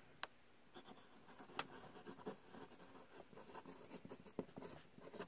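Inlaid nib of a 1960s Sheaffer Skripsert fountain pen writing on lined paper: faint, irregular scratches of short pen strokes as a line of words is written.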